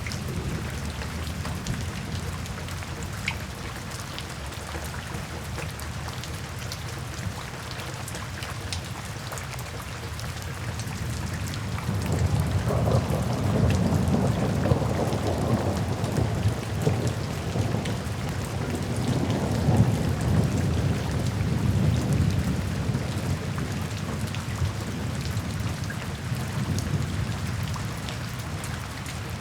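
Steady rain falling, with scattered individual drops ticking. About twelve seconds in, a low rolling rumble of thunder swells up, lasts roughly ten seconds and fades back into the rain.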